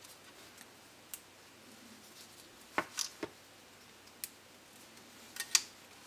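Hobby knife blade cutting through the small tabs that hold laser-cut fire escape parts in their sheet, making a scatter of short, sharp clicks, some in quick clusters of two or three. The loudest click comes about five and a half seconds in.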